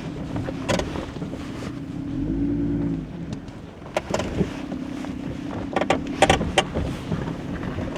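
Off-road 4x4 engine running at crawling speed over a rough, rocky trail, its note rising briefly about two seconds in. Several sharp knocks and clunks come as the vehicle lurches over rocks.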